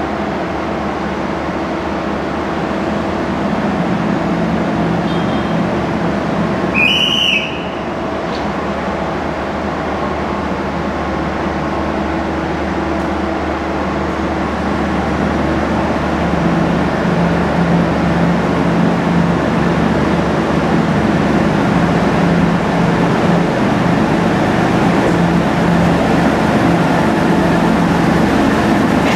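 Diesel engines of a MAN-built OSE class 621 diesel multiple unit running with a steady hum that grows louder, stronger from about halfway through, as the train moves up. About seven seconds in a brief high-pitched tone sounds once.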